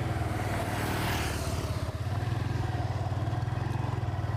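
Motorcycle engine running with a steady low pulsing drone as the bike rides along, with a rush of wind and road noise that swells about a second in.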